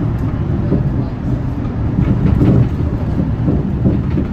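Hyundai Green City diesel bus under way: a steady low engine and road rumble, swelling slightly about halfway through.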